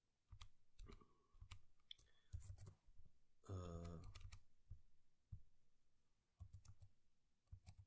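Faint, irregular clicks of a computer keyboard and mouse as code is typed and edited. About three and a half seconds in there is a short wordless voice sound from the person at the computer.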